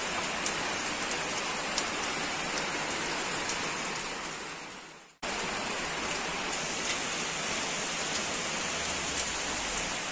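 Steady rain falling, with scattered drops ticking sharply on surfaces. It drops out for a moment about five seconds in and then carries on as before.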